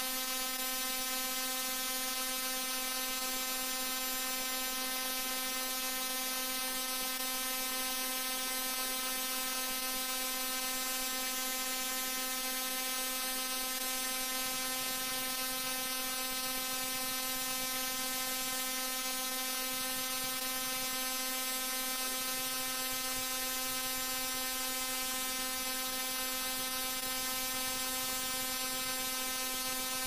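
Digitally processed 'G Major' style sound effect: a steady, unchanging buzzing drone of many stacked tones.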